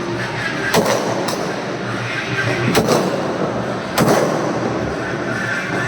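Aerial fireworks going off: four sharp bangs, about a second into the clip, just after, near the middle and past two-thirds, over a constant dense din of further bursts and crackle.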